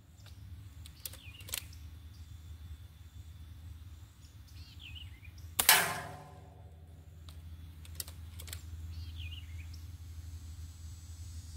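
Gamo Swarm Whisper .22 break-barrel air rifle fires once, about six seconds in; the pellet strikes a steel target, which rings for about a second. Two pairs of quieter sharp clicks come near the start and about eight seconds in.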